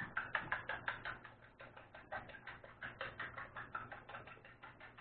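A fork beating eggs and milk in a bowl: rapid, even clicks of the fork against the bowl, about five or six a second.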